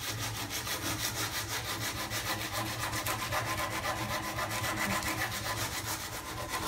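Sandpaper wrapped around a pole rubbing up and down against the cut edge of a hole in a walnut countertop, in rapid, even strokes, rounding over and smoothing the edge.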